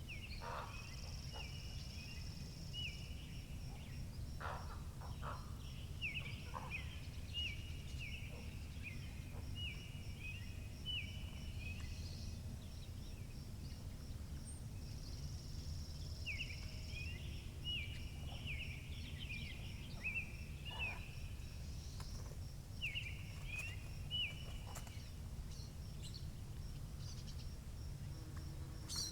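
Wind rumbling on the microphone, with songbirds calling in several bouts of short repeated chirps, roughly one a second, over a faint high pulsing trill.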